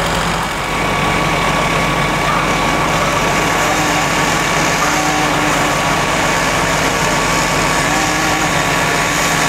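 Fire engine's diesel engine running steadily while it pumps water into the connected hose lines. A low hum drops out about half a second in.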